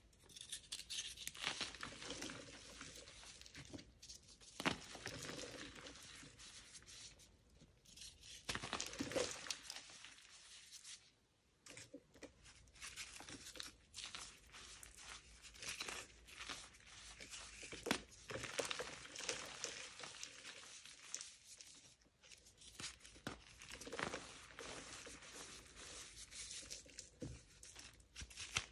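Dyed, dusty pasted blocks of gym chalk being crushed: dense crumbly crackling in bursts, broken by short pauses.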